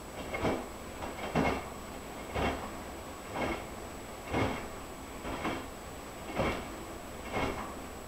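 Front-loading washing machine in its wash cycle: the drum turns the wet, soapy laundry, which drops and sloshes through the water about once a second in a steady rhythm.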